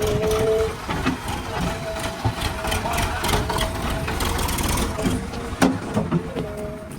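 Backhoe loader's diesel engine running under work, with a steady whine that comes and goes and a few sharp knocks in the second half.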